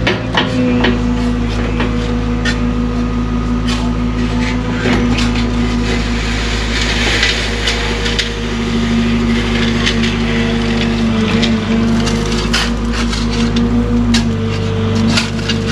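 Cat excavator running at a steady pitch while digging, with frequent knocks and clatters of the bucket working rock and soil. A stretch of hissing, scraping noise about six to eight seconds in.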